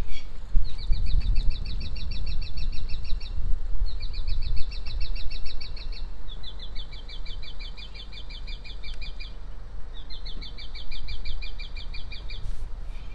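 A small songbird singing four high trills, each a fast run of short repeated notes lasting two to three seconds, with short gaps between them, over a steady low background rumble.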